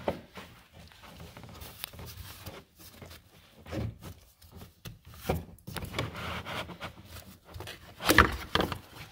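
A 2018 Ford Edge Sport's plastic engine cover being worked into place by hand, rubbing and knocking against the surrounding engine-bay trim in irregular scrapes and knocks, louder about eight seconds in.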